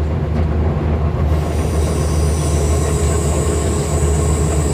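MAN railbus on the move, its diesel engine giving a steady low drone. About a second in, a thin high wheel squeal sets in and holds.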